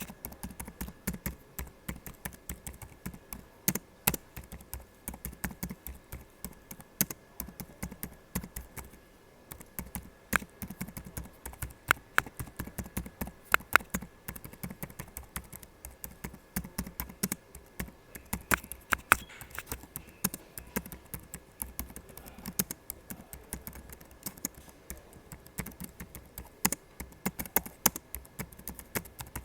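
Typing on a laptop keyboard: a quick, irregular run of key clicks, with a few louder taps and a short pause about nine seconds in.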